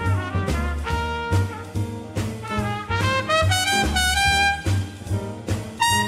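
A trumpet plays a jazz solo, a moving line of short and held notes. Upright bass and drums accompany it, the bass on steady low notes and the drums striking in a swing rhythm.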